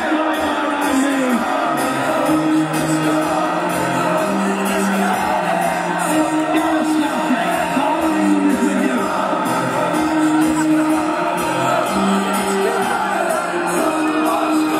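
Live pop-rock band playing through a festival PA, with guitars, drums and sung vocals, heard from the audience in front of the stage.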